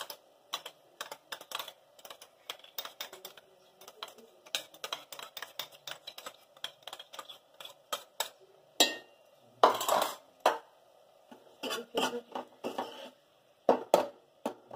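Metal spoon clinking and scraping against small steel bowls in many quick taps, with a louder cluster of knocks against the steel pressure cooker about two-thirds of the way in as a bowl is emptied into it, then the spoon stirring inside the cooker near the end.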